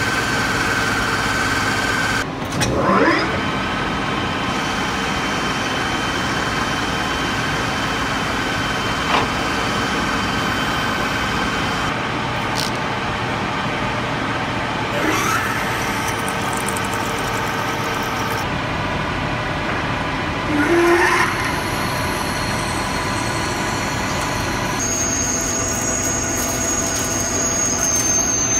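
Metal lathe running, with a steady motor hum and several held tones, while it faces and then drills round metal stock. The sound changes abruptly at a few cuts between clips. Brief rising whines come about 3, 15 and 21 seconds in, and a steady high whine joins near the end during the drilling.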